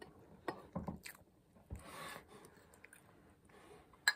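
A person eating sweet rice from a china bowl with a porcelain spoon: soft chewing and small spoon-and-bowl sounds, with one sharp clink near the end.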